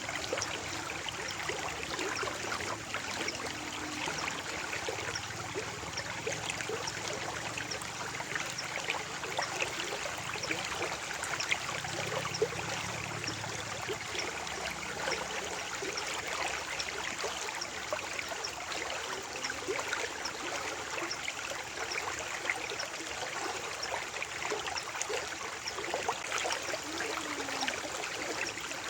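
Stream of water flowing over stones, a steady babbling with many small splashes.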